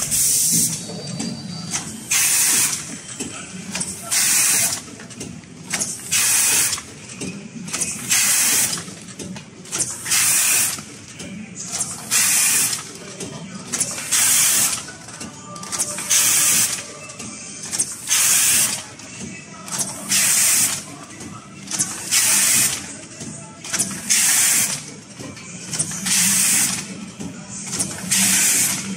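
Automatic spout-pouch filling and sealing machine cycling: sharp hisses of air come about once a second, with a stronger one every two seconds, over a steady low machine hum.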